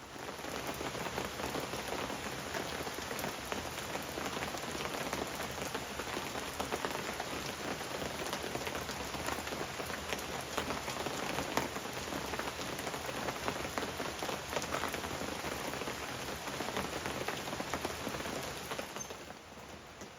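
Steady rain falling, a dense patter of many drops. It starts abruptly and eases off near the end.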